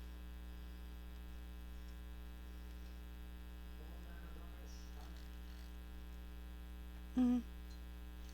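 Steady electrical mains hum, with faint rustling of craft supplies being handled and a short vocal hum about seven seconds in.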